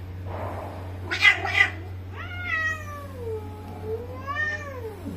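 A Bengal cat hissing and yowling at another cat: two short, sharp hisses about a second in, then one long drawn-out yowl that falls, rises and falls again in pitch.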